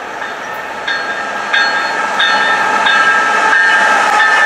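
CN freight train's lead diesel locomotives approaching and growing louder, with the locomotive's multi-note air horn sounding from about a second in, in several blasts run together, dropping slightly in pitch near the end as the locomotive passes.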